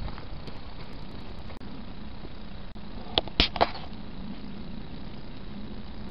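Steady low outdoor rumble, with three sharp clicks in quick succession a little over three seconds in.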